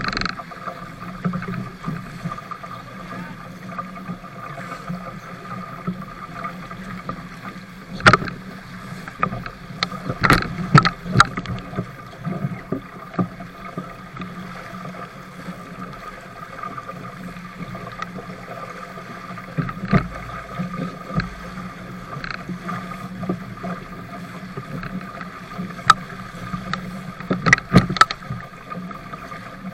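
A 420 sailing dinghy driving through choppy sea: a steady rush of water along the hull with wind, broken by sharp slaps of waves and spray against the boat, a cluster about ten seconds in and more near the end.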